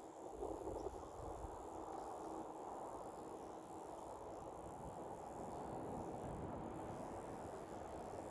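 Wind buffeting the microphone in uneven low gusts over a steady rush of river water.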